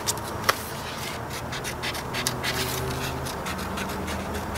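Scissors snipping through paper, with paper rustling and scratching between the cuts; one sharper click about half a second in.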